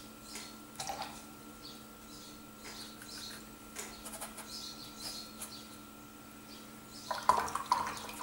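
Small taps and dabs of a paintbrush in the wells of a plastic watercolour palette and on the paper, over a steady low hum. A louder burst of clicking and rustling comes near the end.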